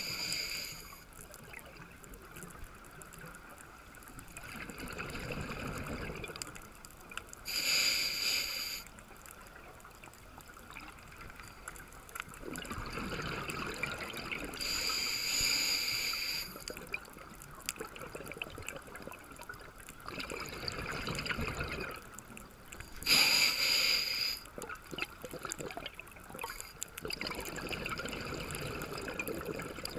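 Scuba diver breathing through a regulator underwater: a gurgling burst of exhaled bubbles about every seven or eight seconds, four in all, with a softer hiss of inhalation between them. The loudest burst comes about two-thirds of the way through.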